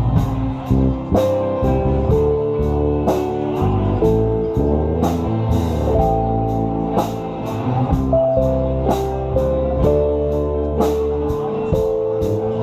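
Live rock band playing an instrumental passage between sung verses: drums keep a steady beat under bass, guitar and keyboards, with long held notes on top.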